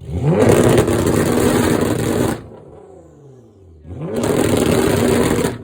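Nissan GT-R R35's twin-turbo 3.8-litre V6 revved hard twice. Each rev climbs quickly, is held for a second or two, and then falls back toward idle.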